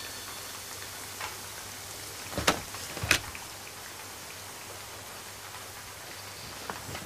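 Steady rain falling, with two sharp knocks about two and a half and three seconds in.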